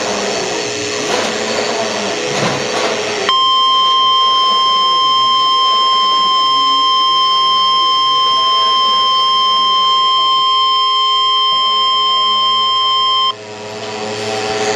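NOAA Weather Radio warning alarm: a single steady 1050 Hz tone held for about ten seconds that cuts off abruptly, signalling that a tornado warning is about to be read. It is preceded by a few seconds of rough, noisy sound.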